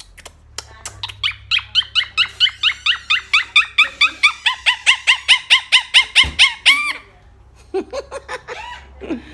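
Blue Quaker parrot (monk parakeet) calling in a long, loud series of quick, repeated squawks, about four a second, for some six seconds, followed by a few shorter calls near the end.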